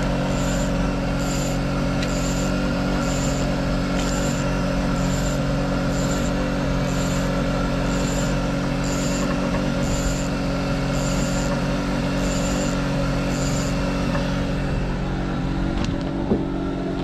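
Engine of a small fishing boat idling steadily. A faint high chirp repeats about once a second and stops a few seconds before the end, and there is a single sharp click near the end.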